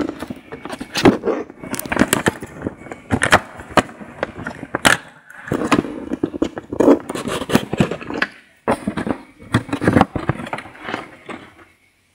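Irregular scraping, rubbing and clicking of a phone being handled and moved around, with fingers brushing its microphone; it cuts off abruptly at the end.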